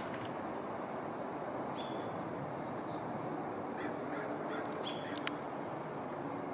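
Faint bird chirps over steady outdoor background noise, with one sharp click a little after five seconds in.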